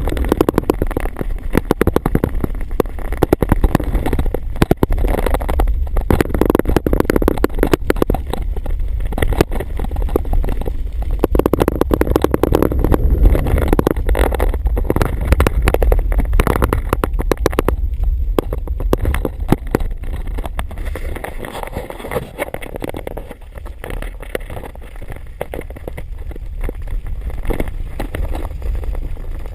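Ride noise from an electric trike picked up by a handheld GoPro: a steady low rumble with dense rattling and clicking, and wind buffeting on the microphone. It eases off a little about two-thirds of the way in.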